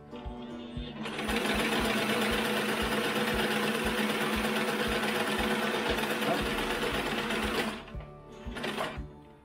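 A 1948 Singer 15-90 sewing machine runs at speed, its electric belt-driven motor humming steadily while the needle stitches through fabric. It starts about a second in and stops shortly before the end.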